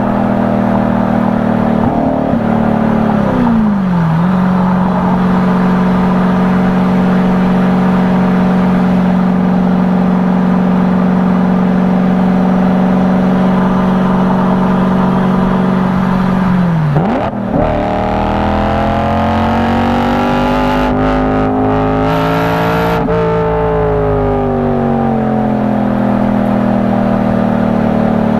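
BMW E92 M3's 4.0-litre V8 running under way. Its pitch falls in the first few seconds and then holds steady for about twelve seconds. It dips sharply, climbs for about five seconds as the car accelerates, then falls away again as it comes off the throttle.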